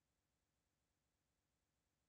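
Near silence: no audible sound.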